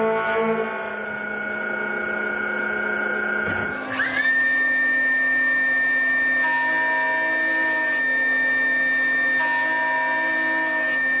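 Mazak Integrex i-200 multitasking CNC machine running. About four seconds in, a whine rises quickly and settles into a steady high whine as the milling spindle comes up to speed and cuts the steel part.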